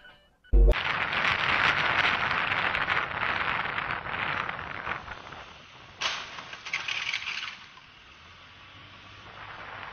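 Dashcam recording of city street traffic with scooters and cars: a sudden thump about half a second in, then loud, noisy road and traffic sound that eases after about five seconds, with another burst of hiss around six seconds.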